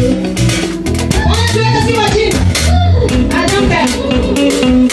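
Live band music played loudly: guitar and bass guitar over a steady beat of drum hits.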